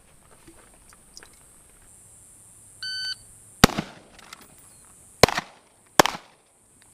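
An electronic shot timer gives one short beep, then three gunshots follow: the first under a second later, the second about a second and a half after that, and the third close behind it.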